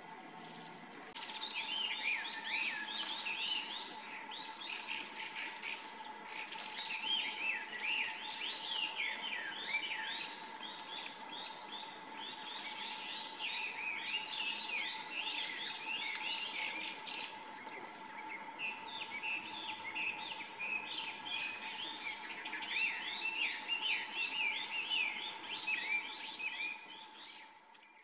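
Small songbirds calling: a dense, overlapping run of short, falling chirps throughout, over a steady faint hum.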